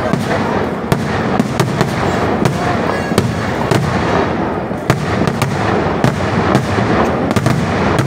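Vedikettu fireworks barrage: a dense, continuous rumble of explosions, with sharp firecracker bangs and crackles going off several times a second throughout.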